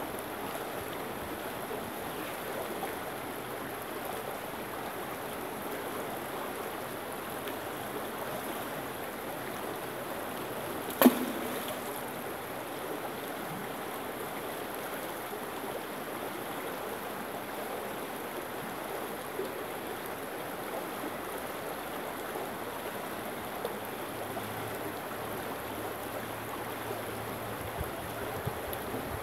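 Shallow rocky stream running steadily over stones, with a single sharp knock about eleven seconds in.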